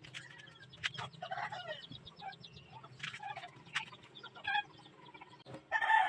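Chickens clucking in short separate calls, the loudest near the end, with scattered sharp clicks.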